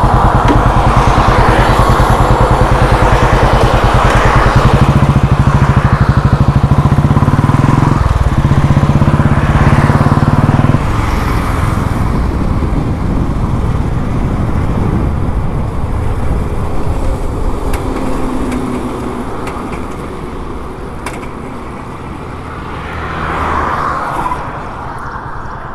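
Royal Enfield Classic 350 single-cylinder engine heard from the rider's seat, running loud with a fast, even exhaust beat as the bike pulls away. About eleven seconds in it drops suddenly to a quieter, steady cruise with wind and road noise, swelling briefly near the end.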